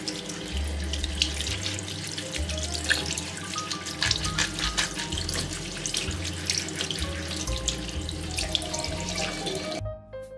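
Tap water running and splashing into a sink as clogged washing-machine parts are rinsed by hand, cutting off near the end, over background music.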